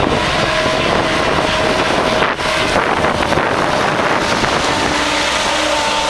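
Tractor engine running, with wind noise on the microphone; a second, lower engine note comes in about five seconds in.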